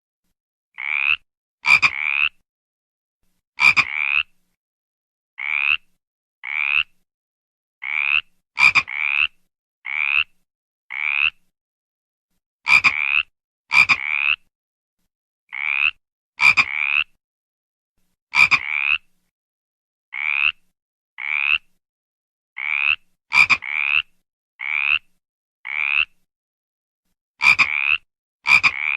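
A frog croaking: short calls about half a second each, coming singly or in quick pairs roughly every second, with clean silence between them. Some croaks open with a sharp click.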